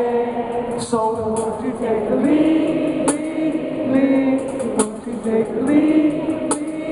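Live Christian rock worship music in an arena: voices holding long sung notes over the band, with a sharp drum or cymbal hit about every second and a half.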